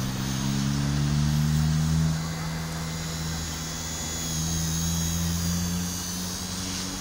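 WLtoys V977 Power Star X2 RC helicopter in flight: its main rotor blades hum together with the high whine of its brushless motor. The hum drifts slightly in pitch and is louder for the first two seconds or so. Wind rumbles on the microphone underneath.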